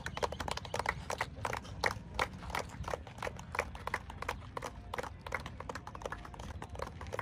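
A small group of people clapping their hands, loose and uneven, several claps a second, over a low steady rumble.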